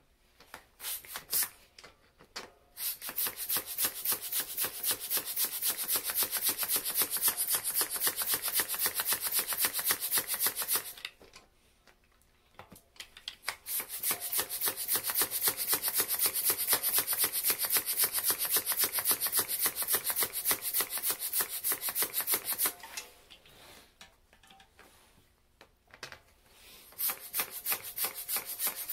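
Small handheld bicycle mini pump worked in quick strokes on a mountain-bike tyre valve, each stroke a rasping hiss of air. It runs in two long spells with a short pause between them, and starts again near the end.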